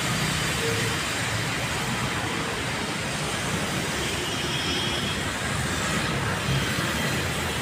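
Steady road-traffic noise: cars and motorcycles passing close by on a busy avenue, engines and tyres making an even low rumble.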